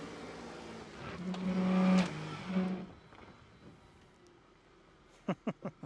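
Holden Adventra LX6's 3.6-litre V6 revving hard and held at a steady pitch for about two seconds as the wagon climbs a rutted dirt hump with a wheel in the air. The engine sound cuts away about three seconds in, and four short, sharp sounds come near the end.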